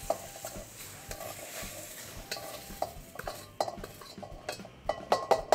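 Wooden spatula scraping stir-fried shiitake mushrooms and scallions out of a hot wok into a glass bowl, with a faint sizzling hiss from the wok. In the last two seconds the hiss fades and a run of sharp clicks and knocks comes as the spatula strikes the wok and bowl.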